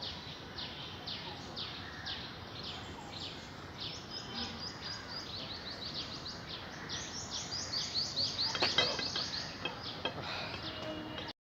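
Bird calling outdoors in a steady series of short, high, falling chirps, about three a second, coming faster in the second half, with a few soft clicks a little before it cuts off suddenly near the end.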